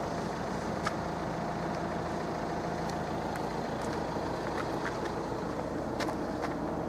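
A road vehicle's engine idling with a low, even hum.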